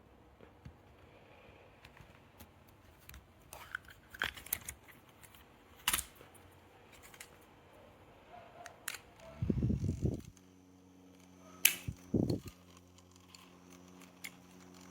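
A series of small clicks and handling knocks, then about ten seconds in a small electric motor starts running with a steady hum and a faint high whine, broken once more by a knock.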